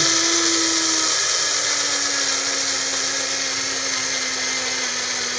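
Small 200 W electric spice grinder running continuously with its blades grinding sugar into powder: a steady high motor whine over hiss, its tone dropping a little about a second in and then holding steady.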